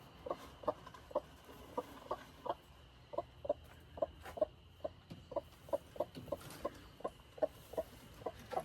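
A hen clucking: a long run of short, evenly spaced clucks, about three a second.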